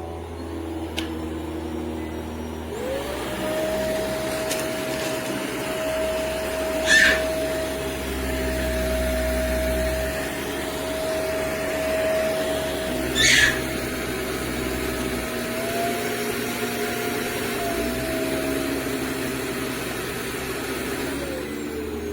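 Upright vacuum cleaner running with a steady motor whine. The whine steps up in pitch about three seconds in, rises slightly again later on and sinks near the end. Two brief sharp rattles come through, about six seconds apart.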